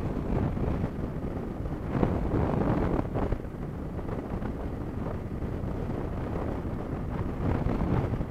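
Wind rushing over the microphone of a motorcycle riding at road speed, with the bike's engine and road noise underneath. There are louder gusts about two and three seconds in.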